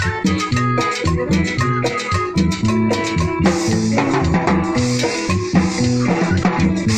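A small band playing live: electronic keyboards carry the melody and a rhythmic bass line over timbales and shaker-like percussion in a Latin dance rhythm.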